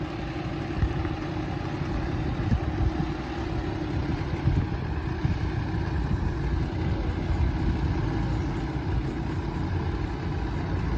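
Nissan GQ Patrol 4x4's engine running steadily at a low, even rumble.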